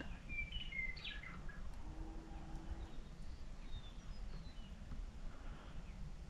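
Small birds chirping: a quick run of short high notes in the first second or so, then fainter scattered chirps, over a low steady rumble.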